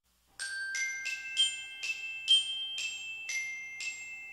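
A short chime melody of struck, bell-like glockenspiel tones, about nine notes at roughly two a second, each ringing on briefly as the next is struck.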